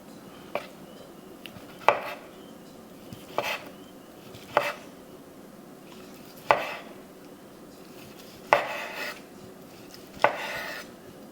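Knife slicing grilled chicken breast on a chopping block. A sharp knock sounds each time the blade goes through onto the block, about seven strokes spaced a second or two apart.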